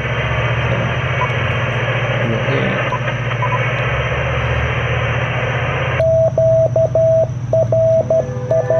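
Icom IC-703 transceiver's receiver putting out a steady hiss of 40-metre band static over a low hum. About six seconds in the static cuts out and the CW sidetone starts: a single beep keyed in Morse dots and dashes as the rig transmits.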